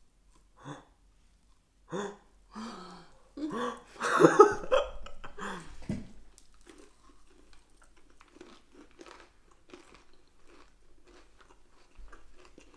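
People biting into and chewing a large cookie topped with glazed hazelnuts: a loud crunching bite about four seconds in, then steady chewing with many small crunches.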